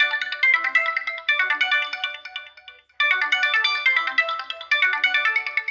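Samsung GT-C5510 mobile phone playing one of its built-in tones through its loudspeaker: a quick electronic melody of short notes, its phrase heard twice.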